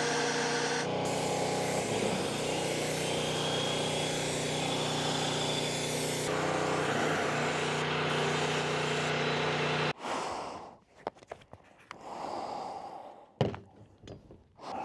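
Airless paint sprayer's motor-driven pump running with a steady hum, then stopping suddenly about ten seconds in. After it come a few light knocks and clatters, with one sharp knock near the end.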